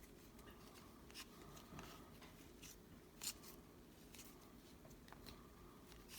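Near silence with a handful of faint, irregular soft clicks from trading cards being handled and flipped through, the most distinct about three seconds in.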